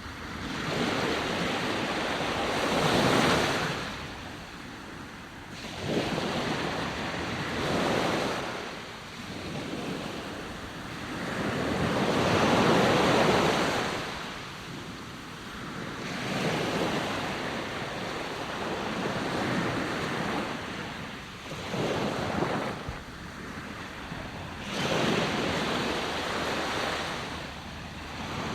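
Sea waves breaking and washing ashore, the surf swelling and falling away with a fresh surge every two to four seconds.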